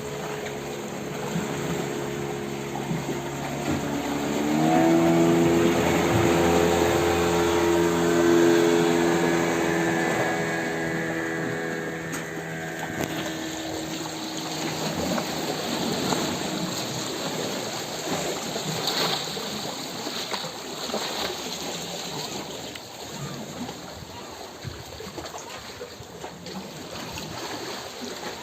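A motor engine running steadily, rising in pitch about four seconds in and fading away after about thirteen seconds, over a continuous sound of running water.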